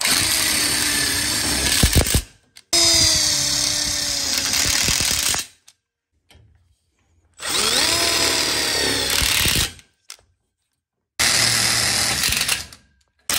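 Cordless impact driver running screws into steel framing tubes and couplers: four runs of about two to three seconds each with short pauses between. The motor whine rises in pitch as each run starts, and a rapid hammering sets in near the end of the first run as the screw seats.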